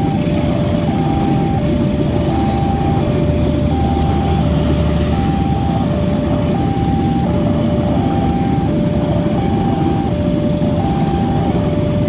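Railway level-crossing warning alarm sounding a repeating two-tone signal, alternating a higher and a lower tone about once every second and a half, over the steady rumble of passenger coaches rolling over the crossing.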